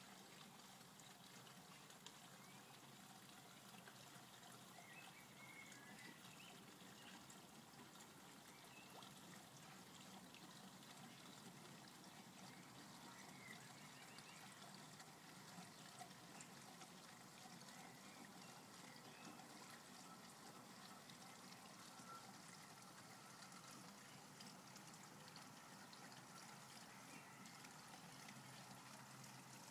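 Faint, steady trickling of running water in a garden fish pond.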